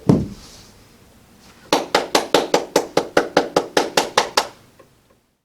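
A single low thump, then a quick, even run of about sixteen sharp strikes, roughly six a second, that stops abruptly.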